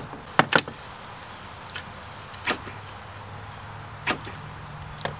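Hard plastic door-trim parts clicking and tapping as they are handled and pried with a screwdriver: about six short sharp clicks spread out, the loudest two in quick succession about half a second in, over a faint steady low hum.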